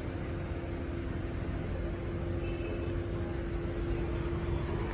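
A motor vehicle engine running steadily: a low rumble with a steady hum.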